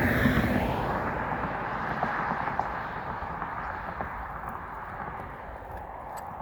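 A motor vehicle passes close by with a falling pitch sweep as it goes past, then its noise fades away steadily.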